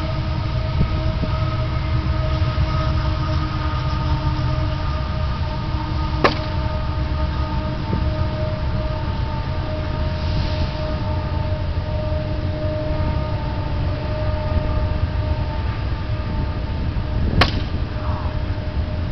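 A steady low rumble with a constant droning hum, broken twice by a sharp plastic crack of a wiffle bat hitting a wiffle ball, about six seconds in and again near the end.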